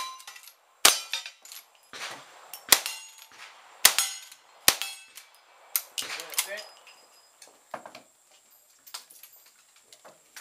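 A string of lever-action rifle shots about a second apart, each shot answered by steel targets ringing as they are hit. The shots thin out after about six seconds into fainter knocks and clatter.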